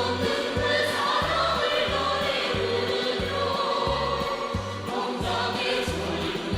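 North Korean pop song: a choir singing over a steady, pulsing bass beat.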